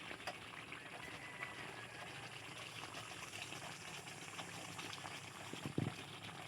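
Liquid bubbling and crackling steadily at a simmer in a cooking pot, with one soft knock a little before the end.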